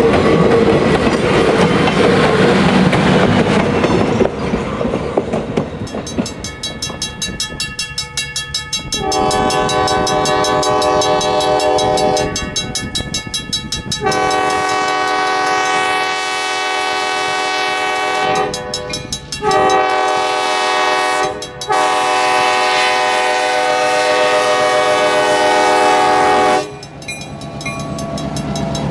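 A passing train rumbles over the rails for the first few seconds. Then the air horn of Strasburg Rail Road's EMD SW8 switcher 8618 sounds four blasts, long, long, short, long: the grade-crossing signal.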